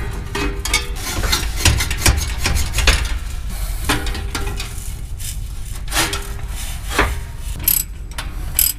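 Steel exhaust pipe being pushed and twisted onto a truck's mid-pipe: irregular metal scraping and rubbing with scattered knocks.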